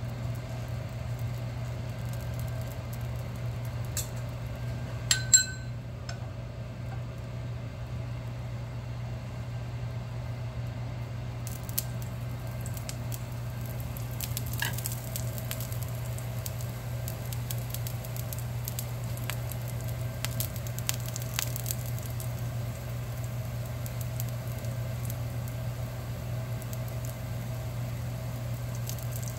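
Dosa batter cooking on a hot cast iron pan, a soft sizzle that turns into a fine, steady crackle from about twelve seconds on as the batter sets and bubbles. About five seconds in comes a sharp metallic clink, the loudest sound, over a steady low hum.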